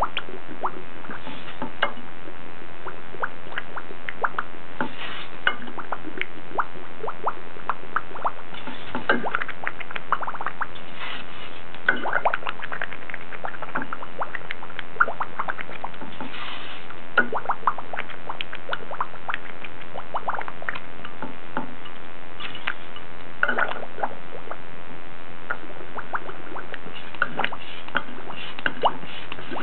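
Irregular clicks, ticks and small wet-sounding pops scattered over a steady hiss with a faint drone, like an abstract electronic soundscape.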